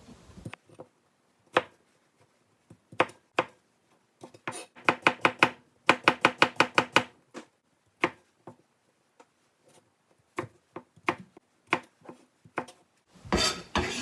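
Kitchen knife cutting cucumber on a cutting board: sharp separate knocks, with a quick run of about a dozen strokes in the middle, then a short scraping sound near the end.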